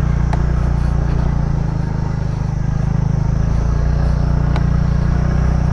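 TVS NTORQ scooter engine running at a steady, even speed under way, with a few light clicks.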